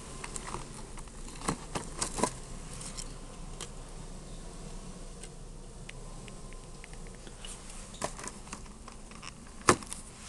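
Steady store background noise with scattered sharp clicks and knocks: a cluster about two seconds in, a few light ticks in the middle, and the loudest single knock near the end.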